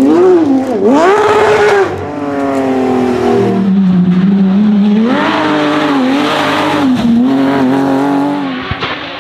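Porsche 911 GT3 flat-six rally engine driven hard on a stage: the revs climb sharply about a second in, fall away, then rise again and hold with small wobbles under throttle. The engine note drops off near the end as the car moves away.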